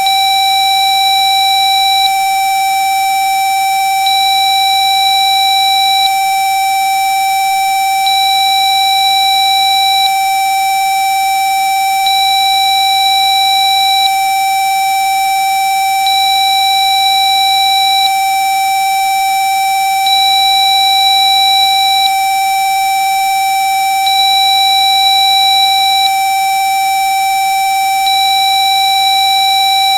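Steady electronic tone at 774.8 Hz from Rife frequency software, with a higher beep-like tone coming on for about two seconds every four seconds.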